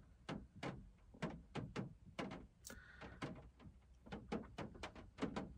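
Raindrops ticking irregularly on the car roof, about four a second, heard from inside the cabin.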